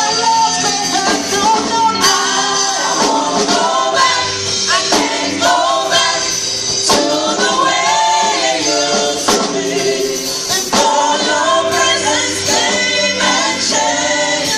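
Church choir singing a gospel song over instrumental backing with a steady percussion beat.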